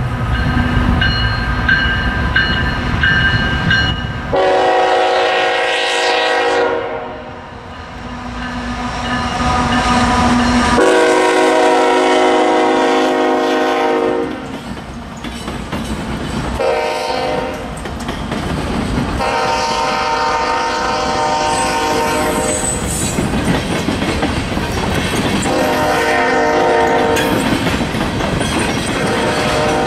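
Diesel locomotive air horn sounding the long-long-short-long grade-crossing signal, with another blast near the end, over the rumble and rail clatter of a passing train.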